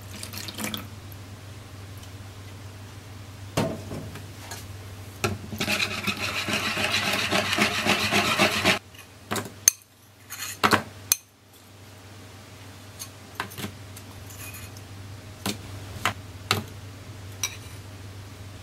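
Milk poured onto plain yogurt in a bowl and stirred, a wet swishing that lasts about three seconds. After that come scattered light clicks and taps as pieces of mango and blueberries are set into a plastic ice-cube tray.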